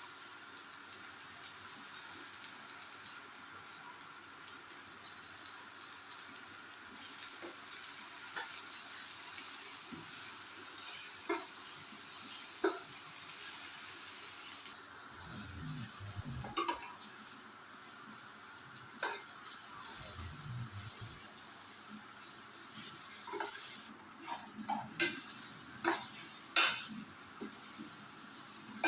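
Pointed gourd (parwal) pieces sizzling in hot oil in a pan while a spatula stirs them, knocking and scraping against the pan now and then, more often near the end.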